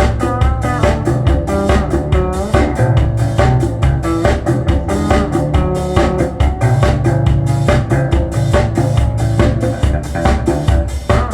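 Recorded music with guitar, bass guitar and drums playing through Bowers & Wilkins 803 D4 floor-standing loudspeakers in a hi-fi demonstration room, with a steady beat and a strong bass line.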